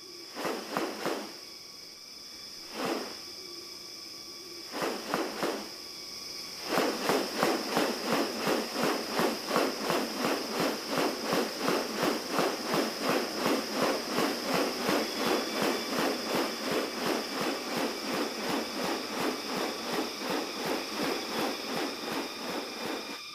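Rainforest wildlife: a steady high insect drone throughout, with a few scattered sharp calls at first. From about seven seconds in comes a fast, regular series of sharp calls or clicks, about four a second.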